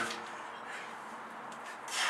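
The ring of a 34 kg sledgehammer's blow on a tyre dies away right at the start. Then there is low steady background while the hammer is raised again, and a short hiss near the end.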